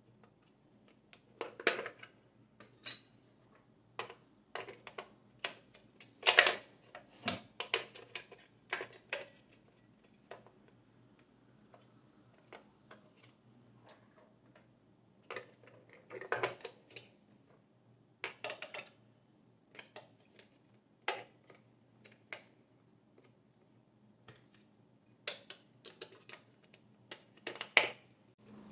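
Hard plastic clicks, taps and knocks as a toy Stihl chainsaw is handled and its battery compartment opened and fitted with batteries: scattered sharp clatters with quiet gaps, the loudest about six seconds in and near the end.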